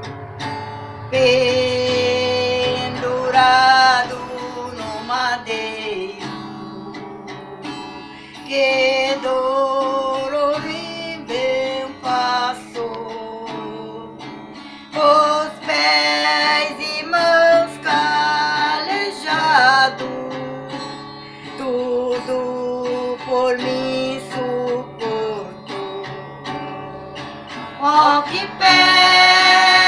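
Acoustic guitar strummed and plucked, accompanying female singing in phrases that swell and fall away.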